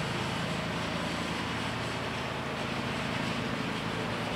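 Steady low vehicle rumble with an even hiss over it, running without change.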